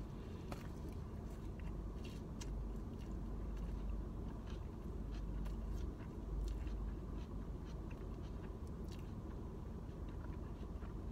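Close-up biting into and chewing a sandwich, with scattered short wet mouth clicks over a steady low rumble.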